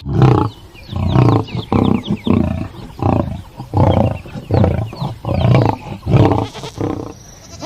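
Lion calling in a series of about ten short, deep roars, each about half a second long and coming in quick, even succession.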